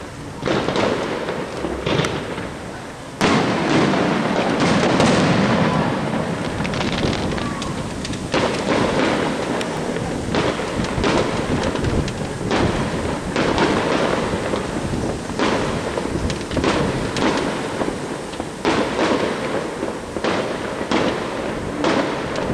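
Aerial firework shells bursting in quick succession: a dense run of sharp bangs over crackling, jumping louder about three seconds in.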